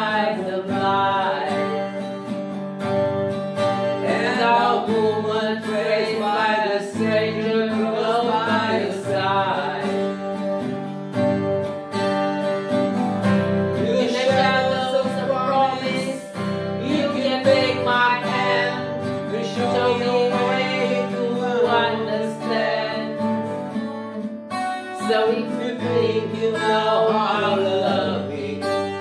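Twelve-string acoustic guitar strummed as accompaniment to a man and a woman singing together.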